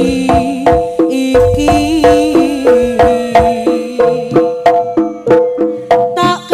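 Live Javanese jaranan band music in an instrumental passage with no singing: drum and pitched percussion strokes at a steady beat of about three a second.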